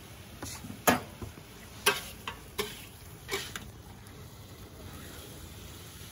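A spatula scraping and knocking against a carbon steel wok several times as chicken pieces are stirred, with the two loudest knocks about one and two seconds in, over a steady low sizzle of the chicken frying.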